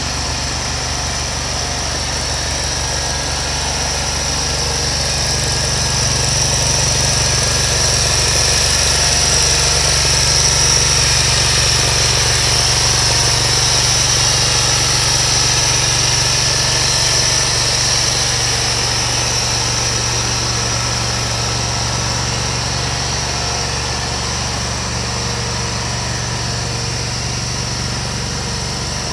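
Toro Z Master zero-turn mower's engine idling steadily, with a thin steady high whine over it; it grows a little louder through the middle.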